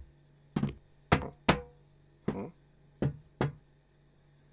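A cat's paws knocking and patting on the side of a box: six separate knocks at uneven intervals, some with a short ring after them.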